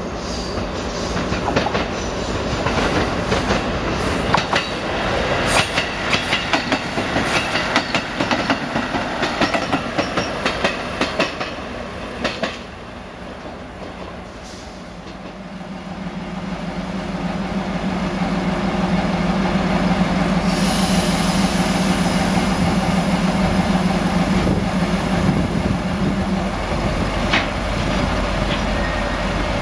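A train rolls through the station with its wheels clacking over rail joints and points for about twelve seconds. After a brief lull, a diesel locomotive's engine drone builds and holds steady as a Kinuura Rinkai Railway KE65 hauls a container freight train slowly past. A high hiss starts about two-thirds of the way through.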